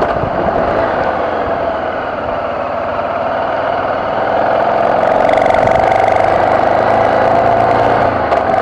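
BMW F650GS motorcycle engine running steadily, growing a little louder about five seconds in.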